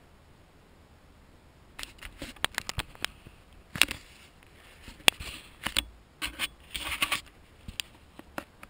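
Handling noise from a handheld camera being turned around: an irregular string of sharp clicks, knocks and rustles that starts about two seconds in, after a quiet start.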